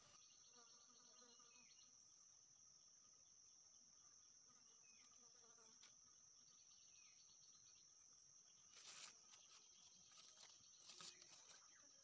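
Faint forest ambience: a steady high-pitched insect drone, with a few short chirps of birds. Some soft crackles and rustles of dry twigs and leaves being handled come near the end.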